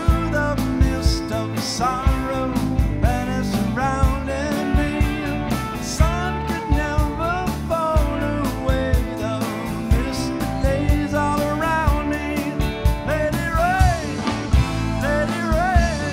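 Live blues-rock band playing: electric guitars, bass, drums and electric keyboard, with a melody line of bending, sliding notes over a steady drum beat.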